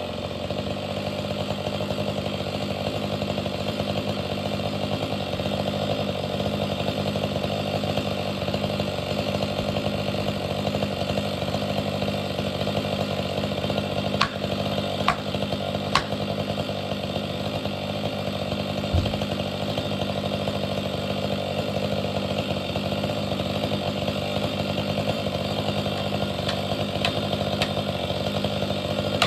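Stihl MS500i fuel-injected two-stroke chainsaw running steadily at high speed, its pitch holding level throughout, with a few sharp ticks about halfway through.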